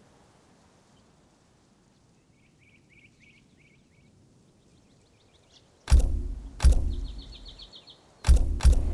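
Faint rapid chirping, like small birds, over a quiet background. About six seconds in, four loud thuds with a low rumble come in two pairs, with more fast chirping between them.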